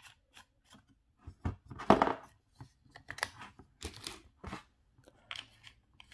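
Handling noise from a plastic-bodied corded rotary tool: a string of clicks, knocks and rustles as its side handle attachment is twisted off the nose and the tool is moved about. The loudest knock comes about two seconds in. The motor is not running.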